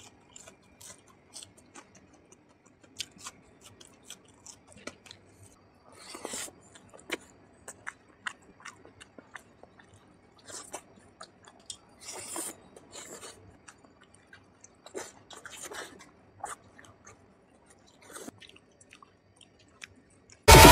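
Close-up chewing and mouth sounds of a man eating oily curry with rice by hand and biting fried pumpkin pakoras: irregular short clicks and smacks. Loud electronic music cuts in suddenly at the very end.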